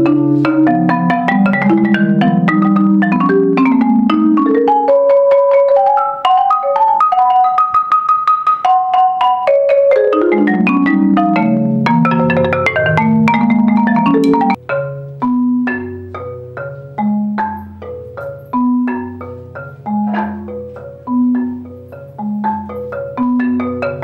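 Solo marimba being played: fast runs and rolls climbing to a high, held tremolo, then, a little past halfway, a sudden change to a slower rhythmic pattern of deep bass notes answered by higher chords, about two strokes a second.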